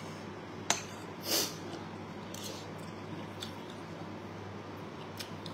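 A person eating from a ceramic bowl with a metal spoon: a sharp clink of the spoon on the bowl under a second in, a short breathy sniff soon after, then faint chewing and light spoon taps over a steady low hum.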